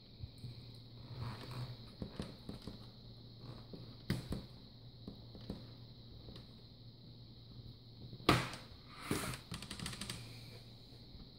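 Plastic clips of a Dell E7440 laptop screen bezel clicking and snapping as fingers pry the bezel loose, with scattered small clicks and a sharper snap about eight seconds in.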